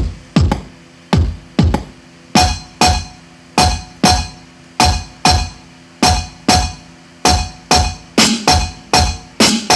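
Electronic music played loud through a car audio system with a roof-mounted speaker box: deep, booming kick-drum hits that drop in pitch come in pairs about half a second apart. About two seconds in, a sharper, brighter hit with a ringing tone joins each beat.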